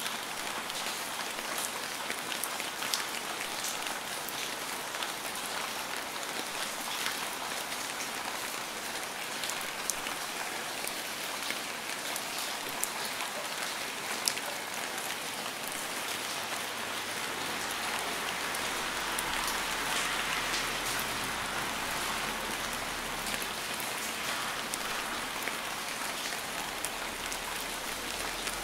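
Steady rainfall, a dense hiss of rain with many separate drops ticking on a hard surface, swelling a little about two-thirds of the way in.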